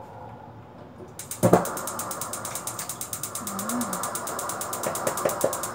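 Kitchen appliance switched on to heat food: a thump about a second and a half in, then rapid, even mechanical clicking, about ten a second, over a steady hum.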